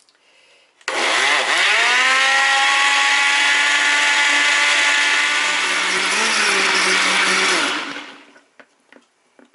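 Countertop blender pureeing peeled tomatoes. The motor starts suddenly about a second in and whines up to speed, runs steadily, then stops and winds down about eight seconds in.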